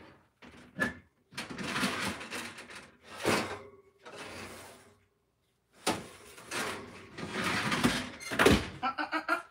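Oven door and baking tray being handled: the tray scrapes on the oven rack, with several knocks and a louder thump near the end.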